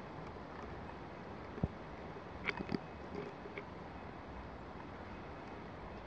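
Steady outdoor background noise, with a soft low knock and then a quick pair of short sharp ticks near the middle.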